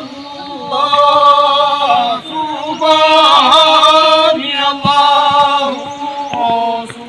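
Men's voices chanting a devotional refrain in unison, in long held notes that waver and break off every second or two.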